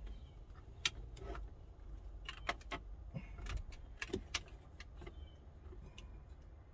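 Irregular small clicks and rattles of plastic wiring-harness connectors and loose wires being handled while they are plugged into a car radio, over a low steady rumble.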